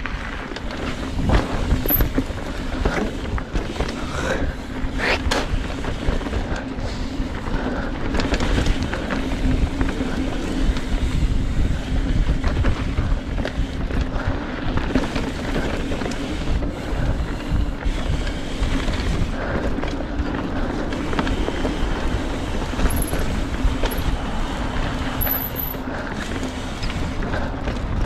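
Trek Fuel EX 7 mountain bike riding a dirt trail: a continuous rumble of tyres and wind, with scattered knocks and rattles from bumps and a steady low hum underneath.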